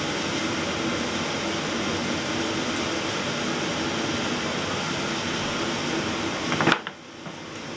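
Steady mechanical hum and hiss, like a fan or air conditioner running. About two-thirds of the way in there is a single short knock as a hand takes hold of the MDF amp rack, and then the sound drops suddenly.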